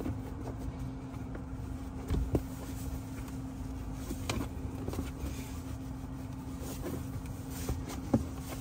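A rubber console mat being handled and slid into a car's centre-console tray: a few soft knocks and scrapes, the loudest about two seconds in, over a steady low hum.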